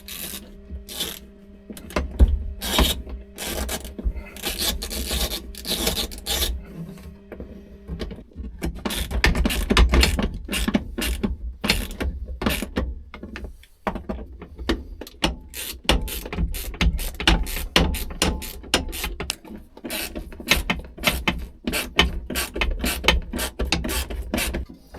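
Hand ratchet wrench clicking in repeated bursts of quick strokes as bolts are turned, with short pauses between runs.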